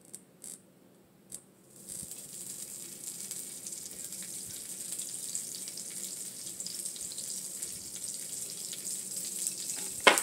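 Butter sizzling on a hot flat-top griddle: a steady hiss that starts about two seconds in, after a few faint clicks. A sharp knock near the end.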